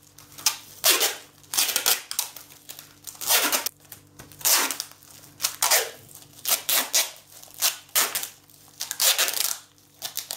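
Packing tape being pulled off its roll and wound tightly around a plastic bag, in about a dozen short rasping pulls roughly a second apart.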